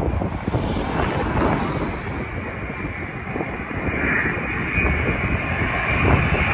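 Wind buffeting the microphone, with the jet engines of an approaching British Airways Boeing 787-9 on final approach, Rolls-Royce Trent 1000s, growing louder from about four seconds in as a rising whine over a low roar.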